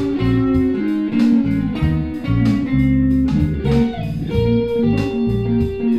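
Instrumental outro music, a guitar-led tune with plucked notes over a steady bass line.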